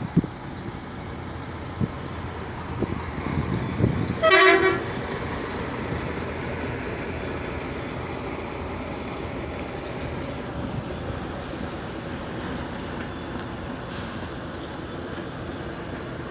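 Steady road and traffic noise from vehicles running, with one short, loud vehicle horn toot about four seconds in.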